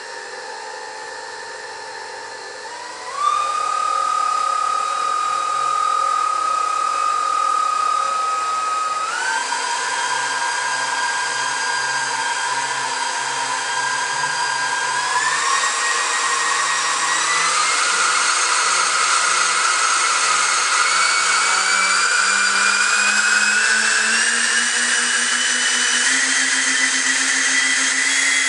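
Twin 90 mm electric ducted fans with 12-bladed rotors running: a high whine that steps up in pitch at about 3, 9, 15 and 17 seconds in as the throttle is advanced, then climbs steadily over the last ten seconds.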